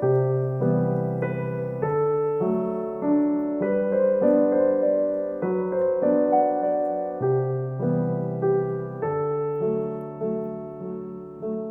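Background piano music: a gentle, slow piano piece playing chords.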